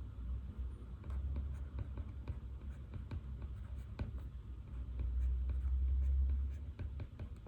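Pen writing on paper, light scratches and taps coming in short irregular strokes, over a low rumble that swells twice, most strongly a little past halfway.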